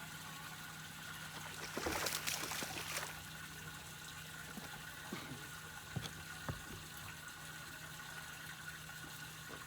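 Water splashing for about a second, starting nearly two seconds in, over a steady low hum, followed by a few light knocks.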